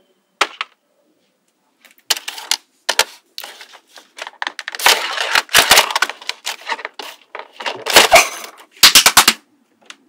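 Rapid clicking and clattering as a marble and wooden flippers strike the walls and posts of a board built from small steel magnetic balls. A few single clicks come first, then dense runs of knocks through the middle and again near the end.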